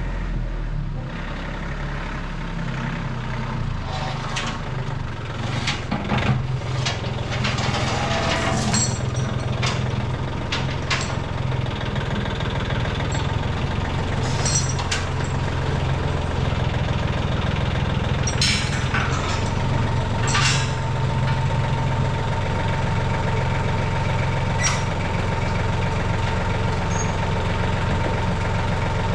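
Skid steer engine running steadily, with scattered metallic clanks and knocks. A thin steady whine joins in about two-thirds of the way through.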